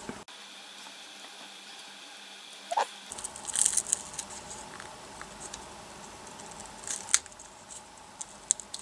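A tool prying an iPhone 4's battery up off its double-sided adhesive tape, with scattered scratchy scrapes and small clicks: a cluster about three and a half seconds in and sharp clicks near the end.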